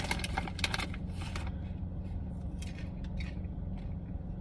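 Popcorn bag rustling and popcorn being handled and eaten: dense crinkly clicking for about the first second and a half, then a few scattered clicks.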